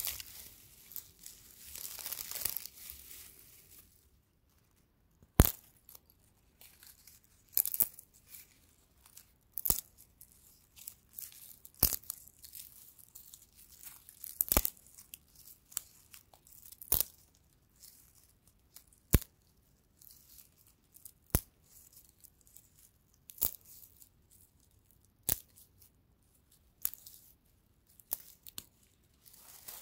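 Dry straw handled by hand: crackling rustle for the first few seconds, then a series of sharp snaps about every two seconds as stalks are bent and broken between the fingers, with soft rustling in between.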